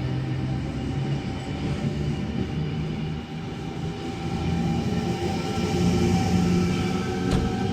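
A train running past, with a low hum that steps up in pitch and grows louder after about four seconds, and a single sharp click near the end.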